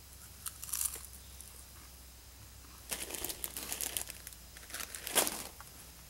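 Crinkly plastic snack packaging rustling in irregular bursts as a hand rummages through a bag of food: a short burst about half a second in, then longer stretches of crinkling from about three to five seconds.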